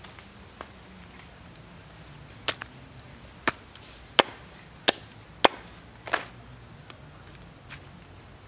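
A large knife chopping through a raw duck carcass onto a wooden board: about six sharp chops in quick succession starting a couple of seconds in, with a few lighter taps around them.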